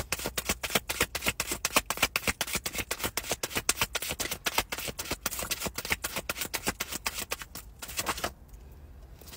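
Tarot cards being shuffled by hand: a rapid run of card clicks, about eight a second, that stops about eight seconds in.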